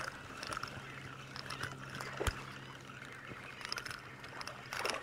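Quiet ambience aboard a boat on calm water: a low steady hum with faint water sounds, scattered light clicks and one sharper tick about two seconds in.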